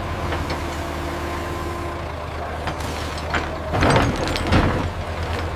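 Animated construction vehicle's engine running with a steady low hum, with a short noisy hiss about four seconds in.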